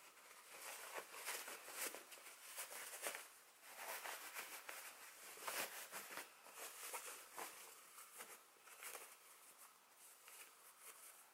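Faint, irregular rustling and swishing of fabric as a sewn stocking is turned right side out by hand.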